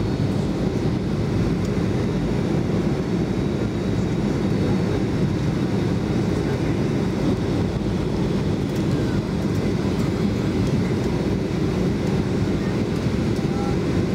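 Steady cabin noise inside a Boeing 737-500 airliner on its landing approach: the CFM56 jet engines running and air rushing past the fuselage, an even, low-pitched din at constant level.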